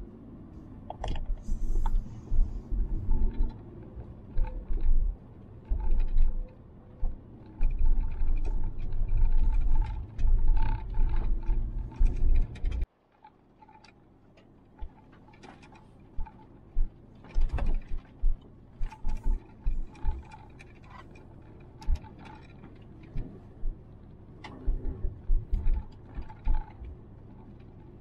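Suzuki Jimny JB64 driving over a rough gravel road, heard from inside the cabin: heavy low thumps from bumps and an irregular clatter of clicks and knocks from gravel and the body. About halfway through it drops suddenly to a quieter stretch with only scattered clicks and knocks.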